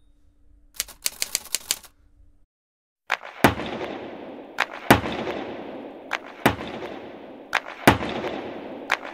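Percussion from a live-recorded music track: a quick flurry of sharp strikes, a brief pause, then sharp strikes in pairs about every second and a half, each leaving a fading wash of sound behind it.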